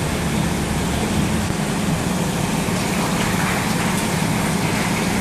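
Bus engine idling: a steady low drone under an even hiss.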